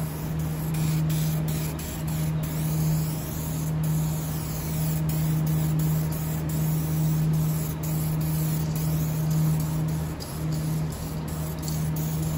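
Aerosol can of two-part epoxy clear coat hissing on and off as it is sprayed over a painted engine block, with a steady low hum underneath.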